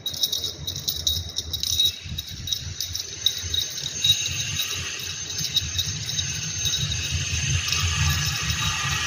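Irregular jingling and rattling made up of many small, quick clicks, over a low rumble that grows louder in the second half.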